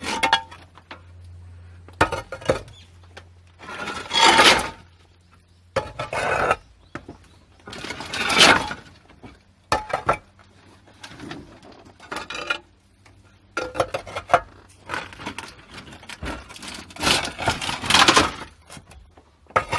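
A sheet of galvanized corrugated iron being handled and shoved into place, giving repeated bursts of metallic clattering and scraping, each about a second long.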